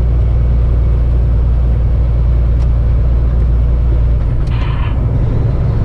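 Kenworth semi truck's diesel engine droning steadily while pulling a heavy lowboy load, heard from inside the cab with road noise. About four seconds in the low drone changes, followed by a short hiss.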